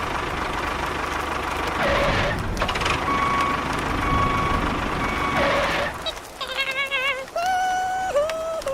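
Small motor running steadily with a constant whine and two brief swoops in pitch. About six seconds in it stops, and a series of electronic tones follows, first warbling, then held notes that step up and down in pitch, like a toy vehicle's sound effect.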